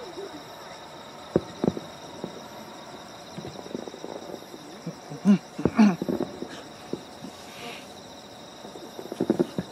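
Steady chirring of crickets or other night insects, with a few sharp knocks and thumps scattered through it, the loudest a pair about a second in, a cluster around the middle and another near the end.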